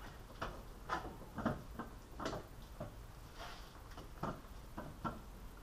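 Hand tools clicking and knocking on metal while a supercharger is being bolted in: about a dozen short, irregularly spaced clicks.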